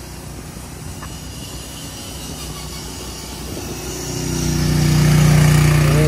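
Small petrol engine on portable work equipment running at a steady speed, growing louder about four seconds in.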